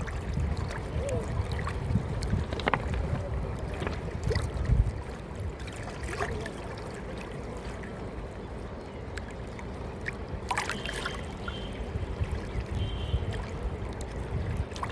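Running water trickling, over an uneven low rumble, with scattered faint clicks and a few brief high chirps about two-thirds of the way through.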